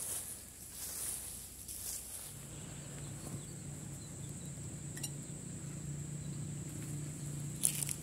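Short bursts of rustling as leaves and dry litter are handled on the ground, then a steady low hum from about two seconds in, with a plastic bag crinkling near the end.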